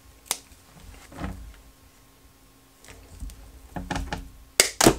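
Clear wire-reinforced anti-static dust collection hose being cut: a sharp snip just after the start, handling rustle and creak of the hose, then two loud sharp snaps near the end as wire cutters bite through the hose's anti-static wire.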